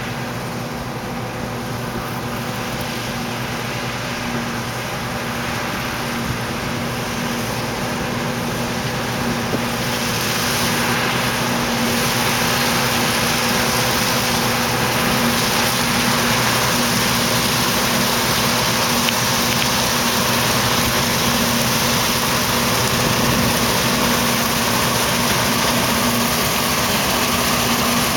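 John Deere 1177 combine harvester running steadily while cutting barley, a constant engine note under the broad noise of its machinery. The sound grows gradually louder over the first ten seconds or so, then holds steady.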